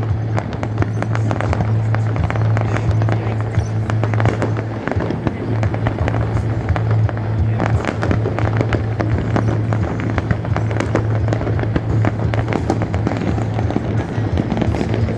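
Fireworks going off continuously in rapid, dense crackles and pops, with music and a steady low drone underneath.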